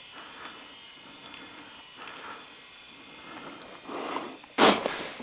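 A single gunshot about four and a half seconds in: a sharp crack with a short echoing tail, fired by a hunter at a moose.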